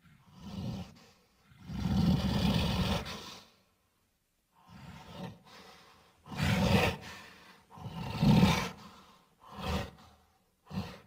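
Gorilla-style vocal sound effects: a series of about seven roars, grunts and breathy huffs separated by short silences, the longest roar lasting nearly two seconds about two seconds in.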